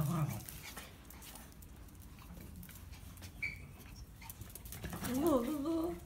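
Dogs at play: a short high squeak midway, then a dog's wavering, up-and-down whining call lasting about a second near the end.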